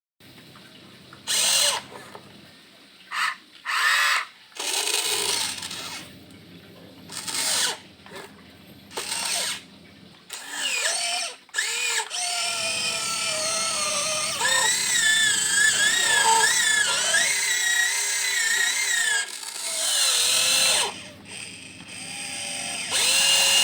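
Huina 1592 RC excavator's electric motors whining in short start-stop bursts of about a second each, then a longer run of about seven seconds, from a little after halfway, with the pitch wavering as the load changes.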